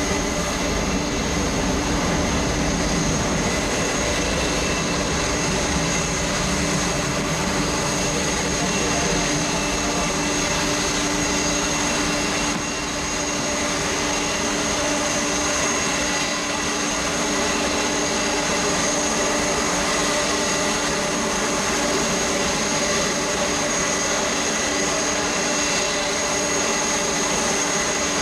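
Jet airliner engines running steadily: a constant whine with steady high and low tones over a rushing noise, neither building nor fading.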